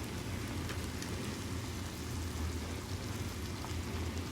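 Pot of water at a rolling boil with a piece of driftwood in it, a steady bubbling hiss, with a low steady hum underneath.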